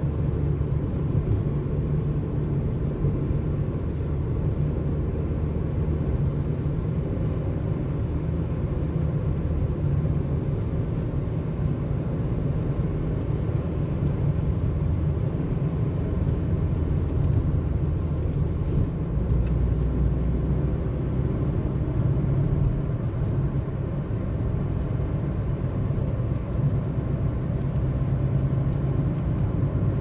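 Steady low rumble of a car driving, made by its tyres and engine and heard inside the cabin.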